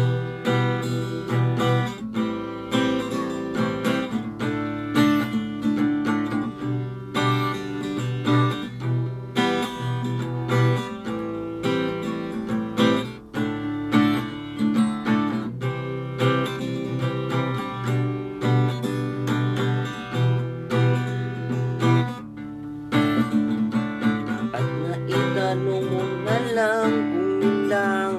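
Acoustic guitar strumming chords in a steady rhythm, with no singing: an instrumental break in the song. A wavering higher melody line comes in near the end.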